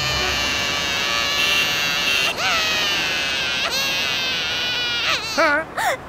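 A cartoon sheep's voice crying in distress: a few short wailing cries that rise and fall in pitch, the last ones coming quickly one after another near the end, over a steady dense background din.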